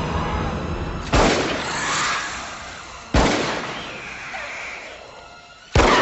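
Three rifle shots from a scoped bolt-action rifle, about two seconds apart, each ringing out and fading away.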